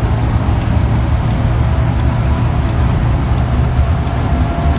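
Fire engine driving at speed, heard from inside the cab: a steady, loud low rumble of engine and road noise.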